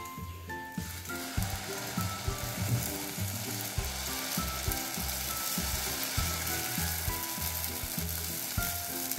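Amboli batter (fermented rice and urad dal) sizzling steadily on a hot, oiled flat iron dosa griddle as it is ladled on and spread into a thick round. The sizzle sets in about a second in, with background music playing under it.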